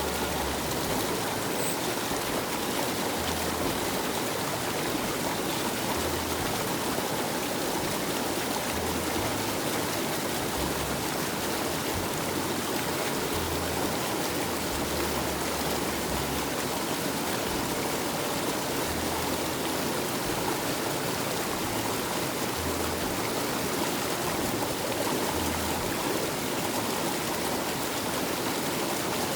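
Mountain stream water rushing and splashing over rocks, a steady continuous noise.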